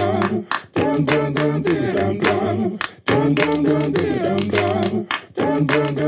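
Intro music: a sung vocal line over hand claps, in short repeated phrases, about three of them, each ending in a brief gap.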